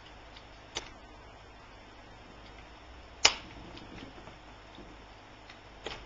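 Sharp plastic clicks as the cover strip above an HP Pavilion dv9000 laptop's keyboard is pried loose. There is a faint click early, a single loud snap about three seconds in, and another small click near the end.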